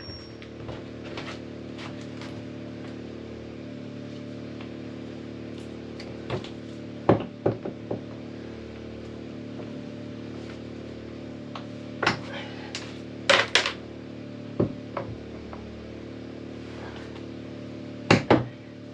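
A handful of sharp knocks on the wooden hull planking as copper boat nails are driven and riveted over roves, scattered from about six seconds in, some in quick pairs, over a steady low hum.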